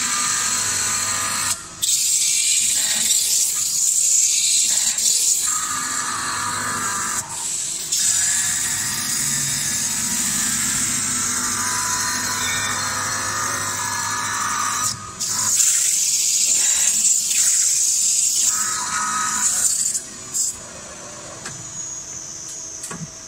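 CNC metal spinning machine forming a 1.2 mm carbon steel pot: the spinning steel and forming roller give a loud, steady high hiss, broken off briefly a few times and quieter over the last few seconds.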